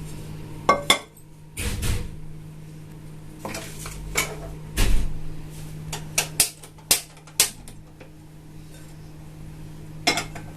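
Metal cooking pots and utensils clanking and clinking as they are handled: about ten separate knocks spread over several seconds.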